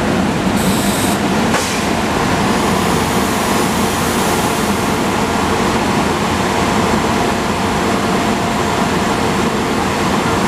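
GE Silverliner IV electric commuter railcar standing at the platform with its onboard air-conditioning and equipment blowers running: a steady hum and whoosh. A short hiss of air comes about half a second in, and a sharp click about a second later.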